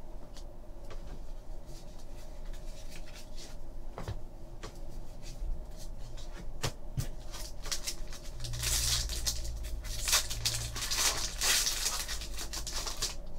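Trading cards being handled with small clicks, then a foil card pack crinkled and torn open, its crackling loudest over the second half.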